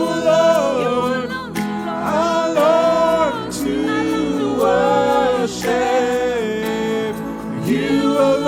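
Gospel worship singing: the worship team sings long, held, gliding notes over a steady sustained accompaniment, with no clear words.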